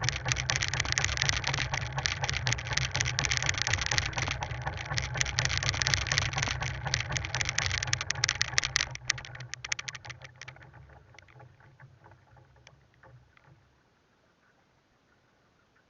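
Small fishing boat: a dense rattle of clicks and water noise over a low hum. It thins out about nine seconds in and fades to near silence.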